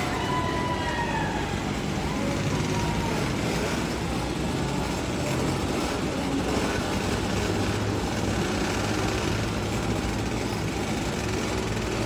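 Youth racing ATV engines running around a dirt track, revving up and falling back, most clearly about a second in and again near the end.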